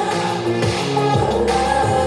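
Music with singing played through a small portable Bluetooth speaker at maximum volume, with bass notes that change about every half second.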